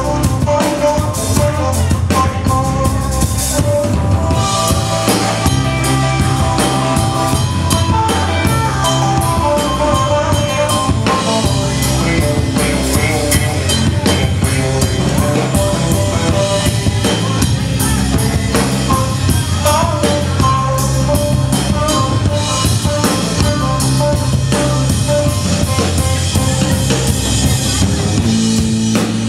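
Live rock band playing, amplified: drum kit with snare and bass drum hits under electric guitars.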